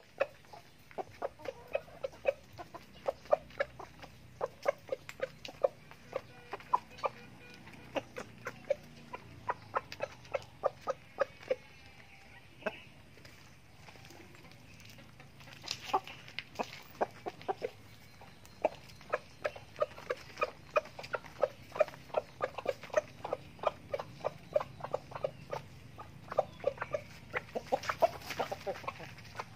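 Chickens clucking while pecking feed off a plastic tarp: a quick, uneven run of short taps and clucks, several a second, easing off briefly about halfway through.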